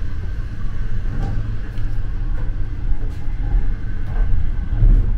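Steady low rumble of a moving conventional passenger train heard from inside the carriage, with a few faint clicks over it.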